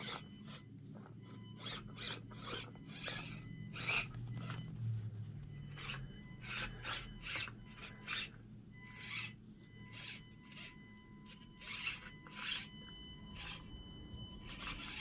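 Axial SCX24 micro crawler's small electric motor and gears whirring in short, rasping spurts as it is throttled on and off, crawling over course obstacles.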